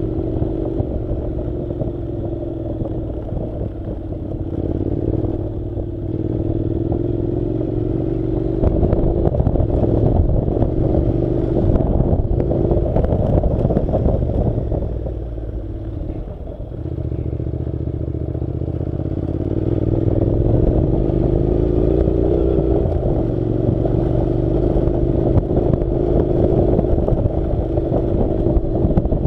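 Honda NC700's 670 cc parallel-twin engine running under a rider on a rough dirt road. The engine note rises and falls with the throttle, eases off about halfway through and then picks up again, over a constant rattle and knocking from the bumpy track.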